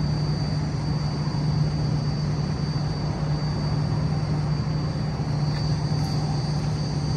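Semi-truck diesel engine idling: a steady low hum with a thin high tone above it.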